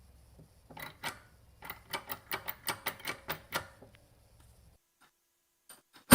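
Cast iron bench vise's quick-release jaw being worked: a run of about a dozen sharp mechanical clicks, about four a second, then one sharp knock at the very end.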